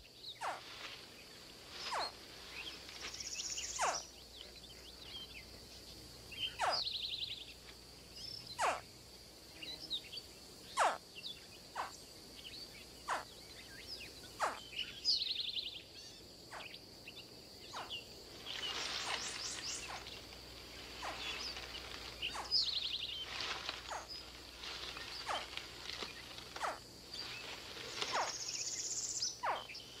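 Swamp wildlife sounds: a steady high insect drone, with short sharp chirps every second or two and a few buzzy, rapidly pulsed calls.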